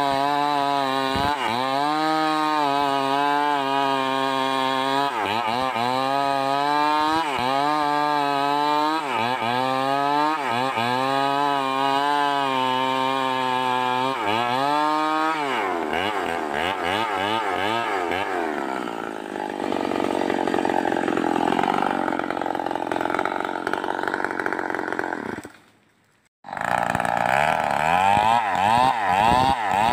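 Stihl 038 two-stroke chainsaw running under load while cutting wood. Its engine note sags and recovers about once a second, then drops lower and rougher around the middle. After a brief cutout near the end it revs up and down quickly.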